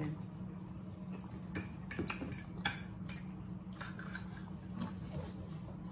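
Knives and forks clicking and scraping against plates as steak is cut and eaten, in short scattered clicks over a low steady hum.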